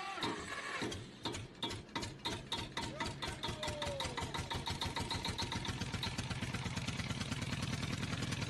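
A small engine or motor running with an even, rapid pulse. The pulse speeds up over the first few seconds, then holds steady at about seven beats a second.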